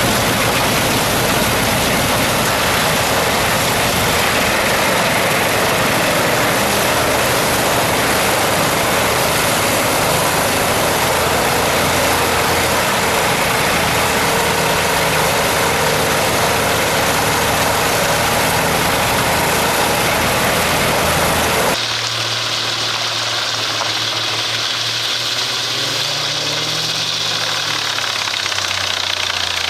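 Heavy forestry machinery running, a dense mechanical noise over a steady engine. About 22 seconds in it cuts abruptly to a quieter engine idling, its pitch rising and falling once near the end.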